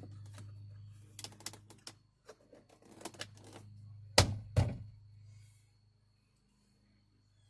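Rattling clicks and knocks of plastic car door parts being handled and fitted, then two loud thumps about half a second apart, a little after four seconds in.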